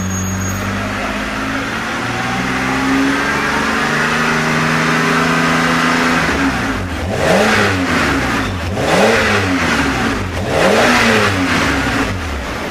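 BMW E60 528 with a HE'ART aftermarket dual exhaust and titanium tips, running at a steady, slightly raised engine speed. About halfway through come three quick throttle blips, each rising and falling, roughly a second and a half apart.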